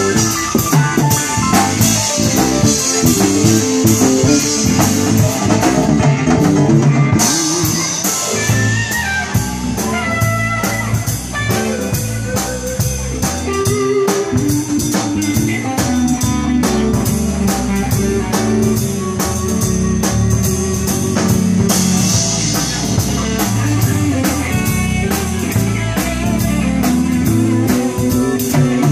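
Live band playing an instrumental passage with no vocals: electric keyboard, drum kit with a steady cymbal beat, and electric bass.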